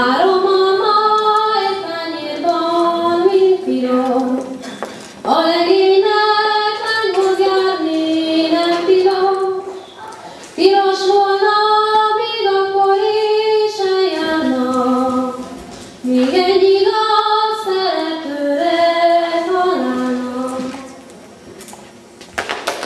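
A young woman singing solo into a handheld microphone, with no instrumental accompaniment. She sings four phrases of long held notes, with a short breath between each.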